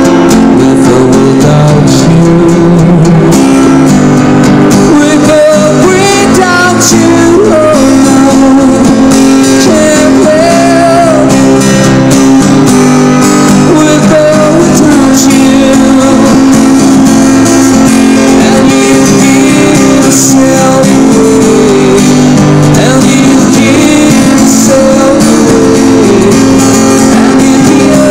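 Acoustic guitar strummed steadily by a street busker, with a man singing over it into a microphone.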